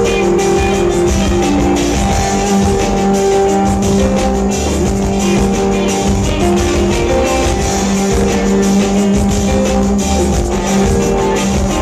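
A band playing live, heard loud from within the crowd: electric guitar over a held low note and a steady drum beat.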